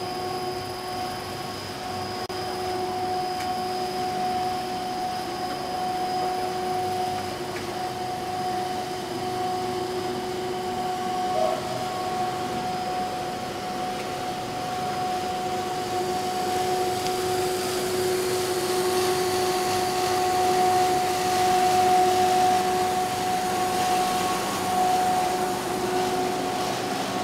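A WPC plastic profile extrusion line running: a steady machine drone with a held whine over a hiss, growing a little louder in the second half.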